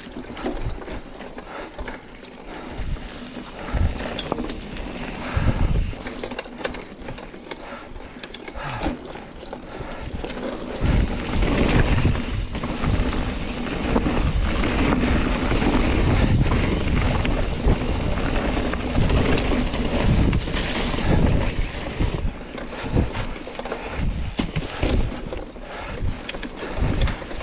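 Mountain bike rolling along a dirt trail, with short rattles and knocks from the bike over bumps and wind buffeting the microphone. The low wind rumble gets heavier about eleven seconds in.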